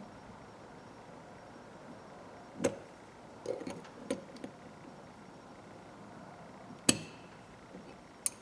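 Scattered sharp metallic clicks and taps from small ratchet parts being handled and worked on: one, then a quick cluster of several, then a single loud click about seven seconds in and one more near the end.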